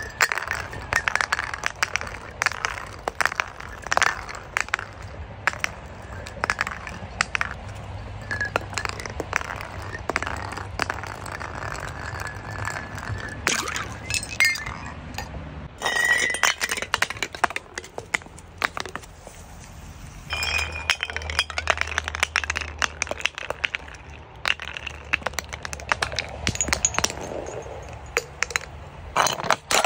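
Liquid-filled plastic and glass bottles tumbling down concrete steps: a long run of irregular knocks, clinks and crackles as they bounce from step to step, with bottles bursting and breaking on impact. The sound changes abruptly several times as one bottle drop gives way to the next.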